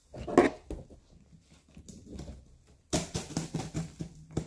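A cardboard shipping box is handled with a knock. Then, from about three seconds in, a blade scrapes and clicks quickly against the packing tape as the box is cut open.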